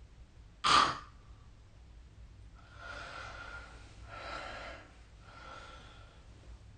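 A sleeping person's breathing: a sudden loud snort about a second in, then three breaths of about a second each, each carrying a faint steady whistle.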